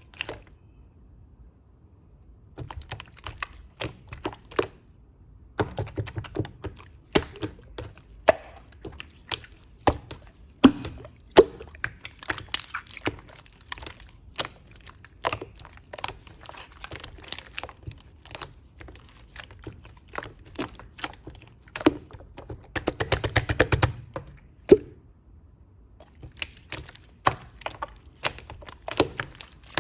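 White slime being squished and pressed by hand, giving irregular sticky clicks and pops, with a quick run of crackling pops about 23 seconds in.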